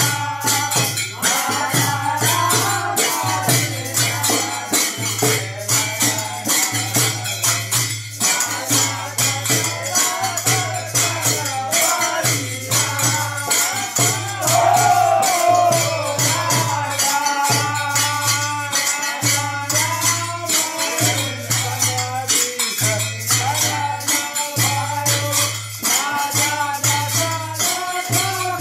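A group of men singing together over a dholak barrel drum, small hand cymbals and a rattle, with hand clapping. The beat is fast and steady, with the jingling and clashing loudest throughout.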